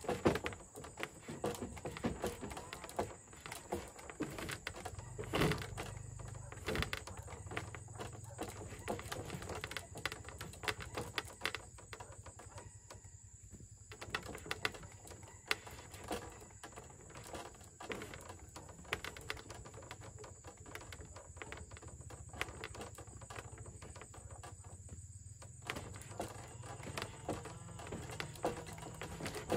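Irregular light knocks, taps and clicks of hand work on bamboo, a few louder ones near the start and about five seconds in, over a low steady hum.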